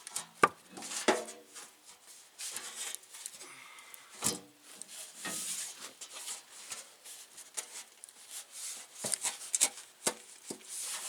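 Sledgehammer blows on a dented truck fender to straighten it, a few hard strikes at irregular intervals, some leaving a brief ring, with scraping and rustling between them.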